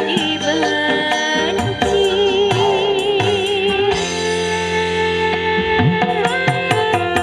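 Music played through a sound system of 15-inch passive speakers with a power amplifier and mixer under test: a wavering melody line over drum beats.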